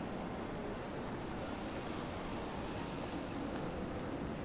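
Steady city street ambience: a constant hum of traffic and outdoor noise, with no distinct events.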